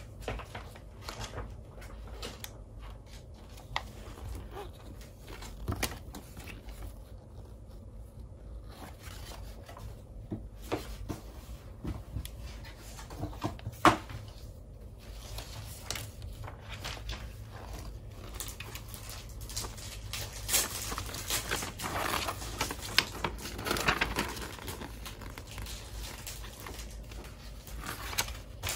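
Clear plastic packaging bags and paper crinkling and rustling while toy parts and the instruction booklet are handled, with scattered small clicks and one sharp knock about halfway through. The rustling gets busier and louder in the last third.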